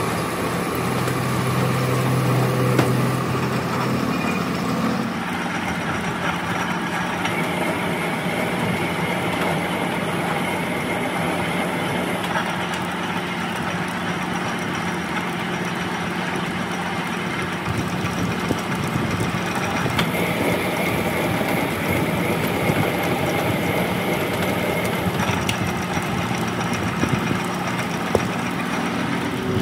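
Metal lathe running steadily while its tool cuts grooves into a spinning steel part: a constant motor hum under the even hiss of the cut, with a few light ticks.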